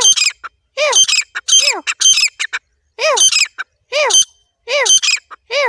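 Female francolin (teetar) calling: a loud, harsh call repeated about every three-quarters of a second, each note arching up and then down in pitch.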